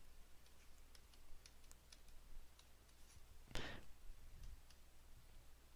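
Faint, scattered clicks and taps of a pen on a drawing tablet while writing, with one brief louder rustle about three and a half seconds in, over a low steady hum.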